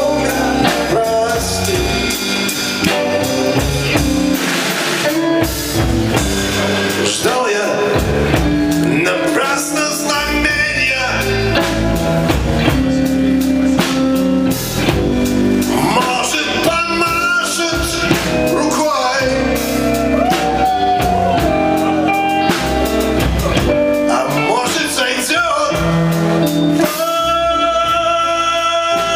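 Live band playing amplified guitars and a drum kit, with a man singing into a microphone.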